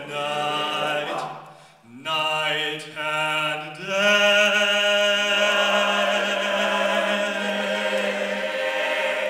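All-male a cappella group singing in close harmony, then holding a long final chord from about four seconds in.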